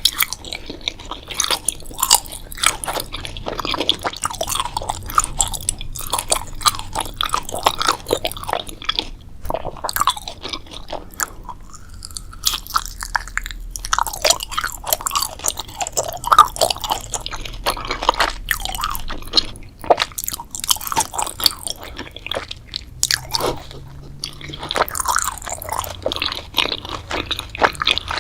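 A person chewing and biting food, a steady irregular run of crunches and mouth sounds.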